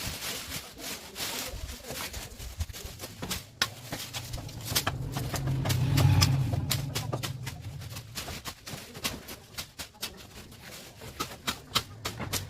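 Guava branches being trimmed: irregular sharp clicks and snaps throughout. A low hum swells to its loudest about halfway through, then fades.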